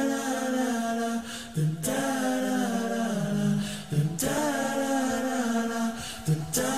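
Intro music of held vocal notes, with a new phrase starting about every two and a half seconds, each opening with a sharp attack.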